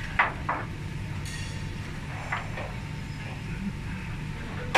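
Light metal clicks and taps as a steel bolt is handled and fitted through the holes of a steel mounting plate, a few scattered strikes with the sharpest near the end, over a steady low hum.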